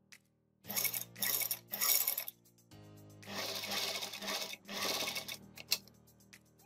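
Usha Craft Master full-shuttle sewing machine stitching through a thick bicycle seat cover in short runs: three quick bursts, then a longer run of about a second and a half, a brief one, and a few clicks near the end. Background music plays throughout.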